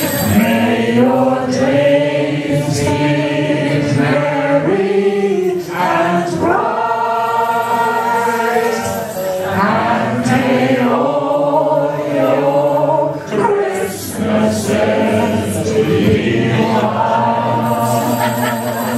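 A man and a woman singing a duet into microphones through a PA, holding long notes over music.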